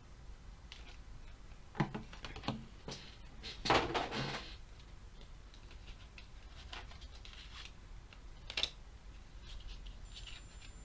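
Light handling of a card-game box's clear plastic packaging insert and trading cards: a few scattered clicks and crinkles, the loudest about four seconds in and another near the end.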